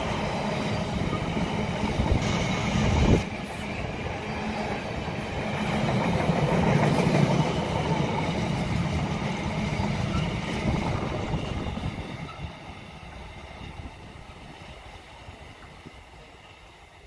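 A train running past on the line, a steady rumble with a low hum, with a short loud rush about three seconds in that stops abruptly; the sound fades away from about twelve seconds in as the train recedes.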